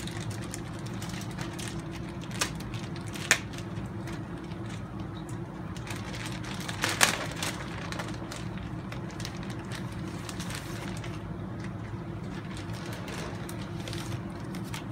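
Clear plastic parts bags crinkling and rustling as they are handled, with a few short sharp crackles, the loudest about seven seconds in, over a steady low hum.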